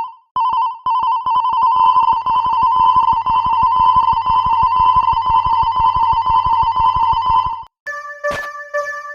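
Level-crossing warning alarm in an animation: a fast, rapidly pulsing electronic ringing tone that cuts off near the end. A different crossing bell takes over, a chord of tones struck about once every two-thirds of a second.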